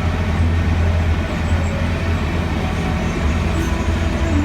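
Fair tram running, heard from aboard: a steady low engine drone with road rumble.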